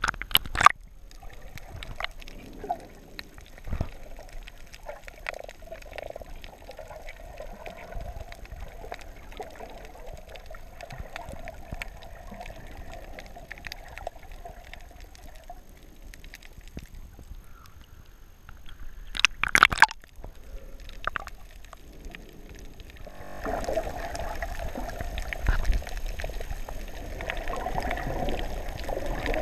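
Sea water sloshing and gurgling around a snorkeler's camera as it moves at and just below the surface. Two sharp splashes or knocks come right at the start and about two-thirds of the way through, and the water noise grows louder and fuller near the end.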